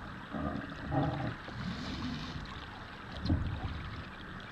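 Water lapping against a kayak hull while under sail, with a few low bumps about half a second, a second and three seconds in.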